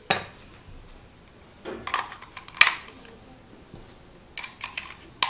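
Sharp plastic clicks and knocks as an AAA battery is fitted into the battery compartment of a small plastic digital thermo-hygrometer and its case is handled, several separate clicks spread through.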